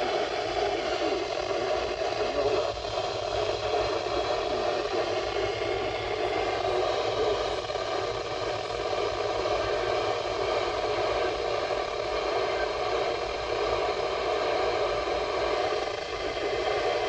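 Steady radio static from a weather radio receiver, with no voice on the channel. It cuts off abruptly near the end.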